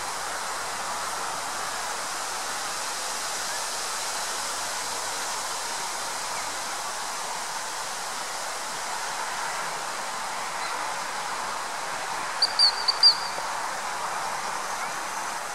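A dog-training whistle gives four quick, short, high blasts about three-quarters of the way through: the whistle signal that turns or recalls the spaniel during quartering search. Underneath runs a steady background hiss.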